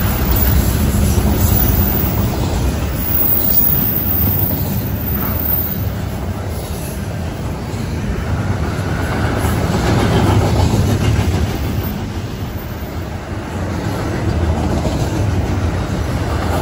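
Double-stack container freight train passing at speed: a steady, loud rumble and rattle of wheels and cars on the rails, swelling a little about ten seconds in.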